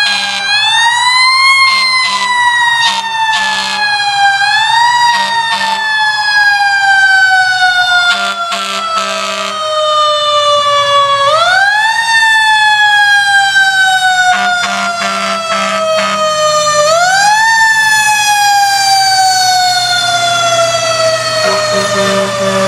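Fire engine siren wailing loudly. Its pitch climbs quickly four times and after each climb slides slowly down over several seconds. Several bursts of short, low horn blasts sound over it.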